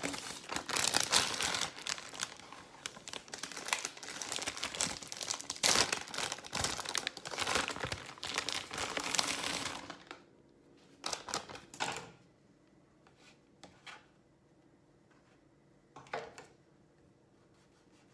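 Plastic wrapping crinkling and rustling as it is handled and pulled off a loaf of bread for about ten seconds, followed by three short rustles.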